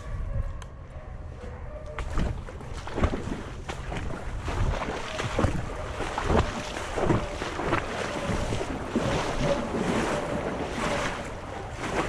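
A person wading through shallow swamp water: a run of splashing, sloshing steps, one or two a second.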